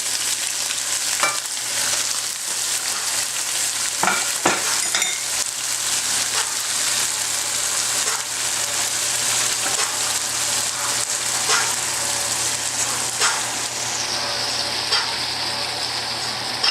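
Raw shrimp frying in hot olive oil with garlic and onion, a steady sizzle, with a few short taps and scrapes of a utensil against the pan as they are stirred.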